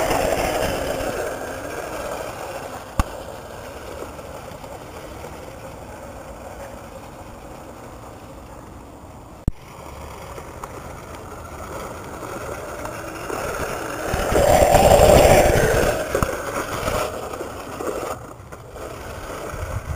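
Razor electric scooter running over a dirt track, its motor and small wheels rolling on the rough ground, loudest as it comes close to the microphone right at the start and again about fifteen seconds in. Two sharp knocks, a few seconds apart, stand out.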